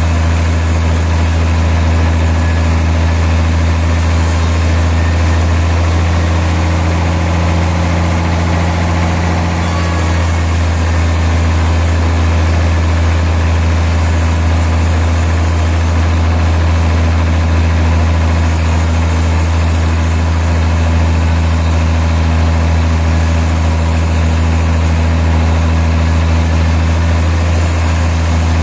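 Sawmill machinery running steadily with a constant low hum, which shifts slightly about a third of the way through.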